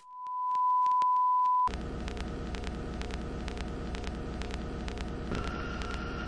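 A steady pure test tone for about a second and a half, cutting off abruptly into a steady low hum with faint crackling clicks. A faint higher whistle joins near the end.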